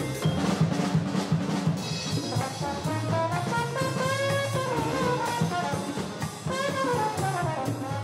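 Jazzy instrumental show theme music with brass and a drum kit.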